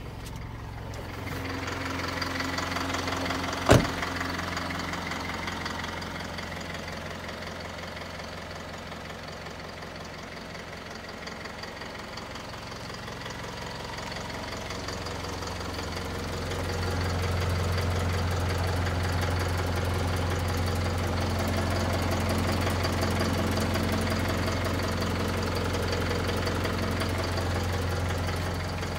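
Isuzu Elf truck's engine idling steadily, with a single sharp bang about four seconds in. The idle gets louder about halfway through, heard close to the chassis.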